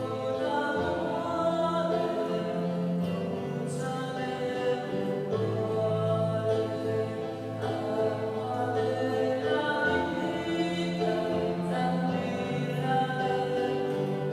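Devotional choral music: voices singing slow, sustained phrases over held bass notes.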